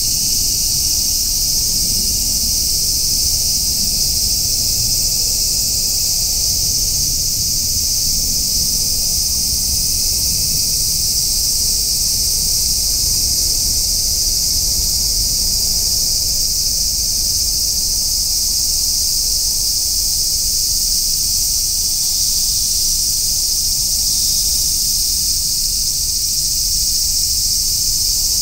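Continuous chorus of insects, a steady high-pitched shrilling that holds without a break.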